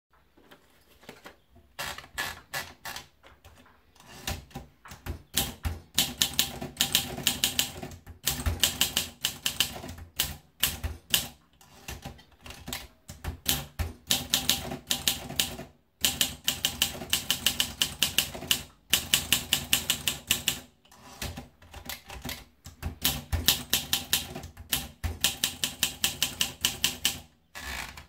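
Olympia SM2 manual portable typewriter being typed on: quick runs of sharp type-bar strikes with short pauses between them, after a few quieter clicks at the start.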